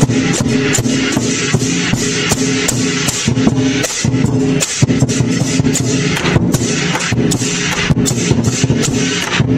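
Traditional Chinese lion-dance percussion: a big drum beaten in a fast, driving rhythm with clashing cymbals and gong over it.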